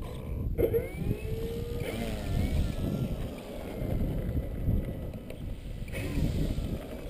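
Wind buffeting the microphone as a low, uneven rumble, with a short steady whine starting about half a second in and a faint wavering tone after it.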